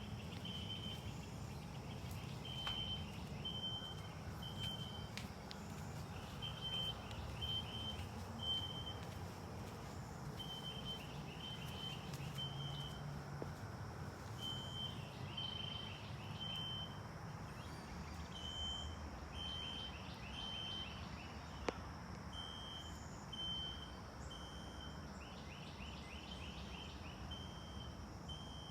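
Recorded System Sensor SpectrAlert Classic fire alarm horn playing from a tablet in the temporal-three evacuation pattern: three short high beeps about a second apart, then a pause, repeating. It sounds over a steady low rumble.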